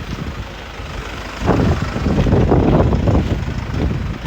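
Mercedes Sprinter 213 CDI's four-cylinder diesel idling with its refrigeration unit running, a steady low rumble. About a second and a half in, a louder rough noise rises over it for about two seconds, then settles.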